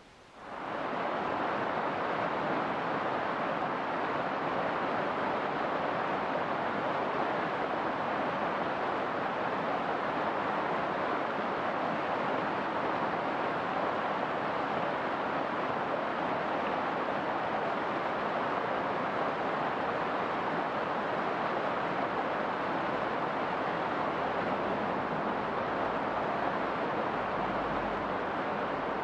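Steady rush of a river running over rocks and low rapids, fading in quickly at the start and then holding even.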